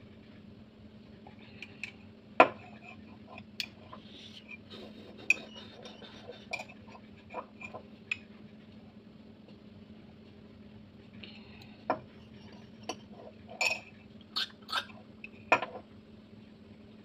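Metal spoon clinking against a ceramic mug while stirring milk: irregular sharp clinks, the loudest about two seconds in, a quiet stretch in the middle, and a quick cluster near the end.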